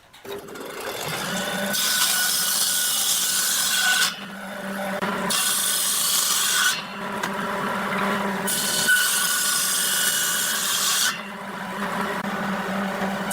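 A handheld power tool spins up and then works wood, a steady motor hum under a harsh grinding hiss. The hiss comes and goes as the tool is pressed into the wood, in three long passes of a few seconds each.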